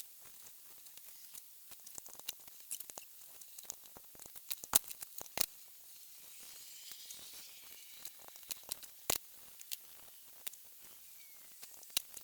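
Irregular light clicks and taps of hand tools and nuts being worked while undoing the cylinder head's studs, the loudest about five and nine seconds in.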